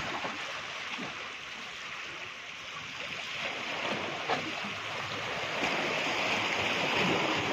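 Sea surf washing over shore rocks, a steady rush that swells a little near the end, with one short knock about four seconds in.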